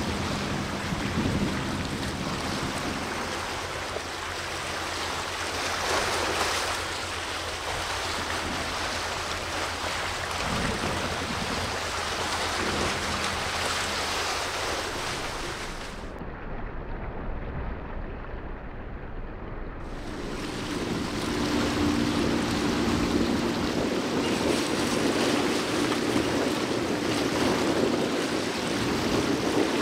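Wind buffeting the microphone over a steady rush of sea water, with a low steady hum from a passing vessel growing louder about two-thirds of the way in.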